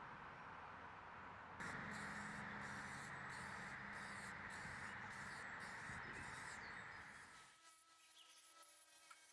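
Aerosol spray paint can (Rust-Oleum Bright Coat metallic) spraying in a steady hiss that starts abruptly about a second and a half in and lasts about five and a half seconds before fading.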